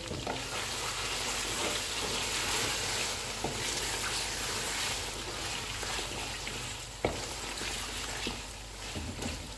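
Mutton karahi sizzling steadily in oil over high heat while a wooden spatula stirs it, scraping and knocking against the metal karahi; a sharper knock comes about seven seconds in.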